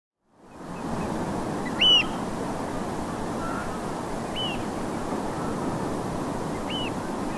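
Eurasian oystercatchers giving three single piping calls about two and a half seconds apart, the first the loudest, over the steady wash of distant North Sea surf. The sound fades in at the very start.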